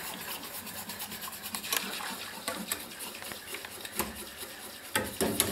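Wire whisk stirring soy-milk custard in a stainless steel saucepan, with repeated light scraping and rattling of the wires against the pan. The custard is still thin as it heats toward the boil. There are a couple of louder taps near the end.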